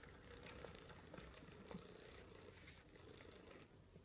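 Faint sounds of a pug chewing and mouthing a plush toy: soft scattered small clicks and rustles, close to silence.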